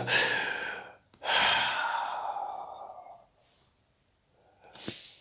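A man breathing heavily and gasping, acting out suffocation: two long breaths in the first three seconds, the second trailing off, then a short quick breath near the end.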